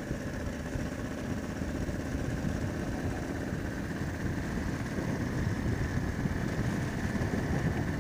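Motorcycle engine running steadily as the bike is ridden, picked up by a GoPro on the rider's helmet chin.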